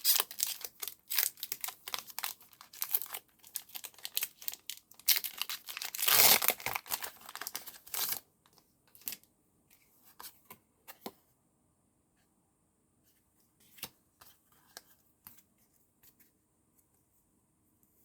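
Pokémon TCG booster pack wrapper crinkling and being torn open, with the longest, loudest rip about six seconds in. After that only a few faint ticks and taps are heard as the cards are handled.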